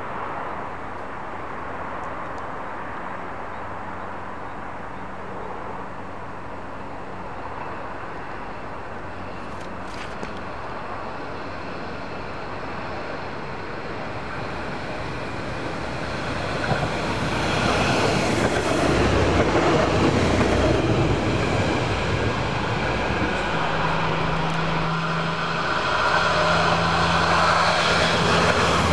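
Siemens Desiro diesel railcar approaching and passing beneath: a distant hum swells into loud engine and wheel-on-rail noise about two-thirds of the way in. Near the end a second railcar draws close with a steady low engine drone.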